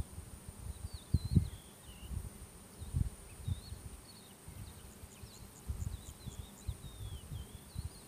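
Wind buffeting the microphone in irregular low gusts, over small birds chirping and warbling high and a faint steady high-pitched insect trill; about five seconds in, a quick run of high ticking chirps.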